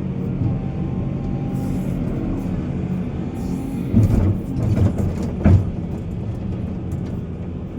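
Heavy diesel engine of mining machinery running steadily under load, with three heavy thuds about halfway through.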